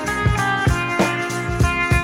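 Background music: a guitar-driven rock track with a steady drum beat.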